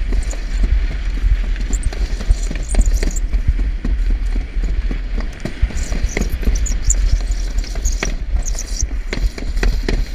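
Alpine slide sled running fast down the concrete track, with a constant low rumble and wind buffeting the camera microphone. Frequent rattling knocks from the sled on the track, and a few brief high squeaks.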